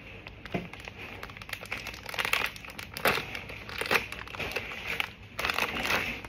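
Plastic Labubu blind-box bag crinkling and crackling in the hands as it is opened, in irregular bursts that are strongest near the end.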